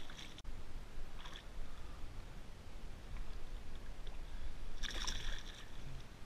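Water splashing beside a kayak: a short splash at the start as a released fish hits the water, a smaller one about a second in, and a longer, louder splashing about five seconds in.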